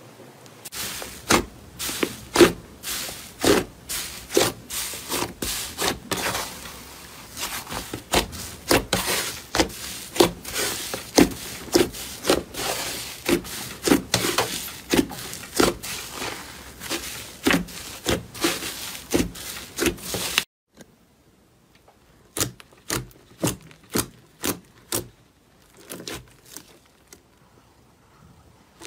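Thick slime squeezed and poked by hand, giving a dense run of sticky pops and crackles as air pockets burst. About twenty seconds in it cuts off suddenly to a much quieter stretch with only a few scattered pops.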